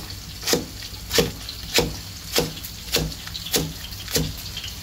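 Cleaver slicing through lemongrass stalks onto a wooden chopping block, one sharp knock of the blade on the wood about every 0.6 s, eight cuts in all.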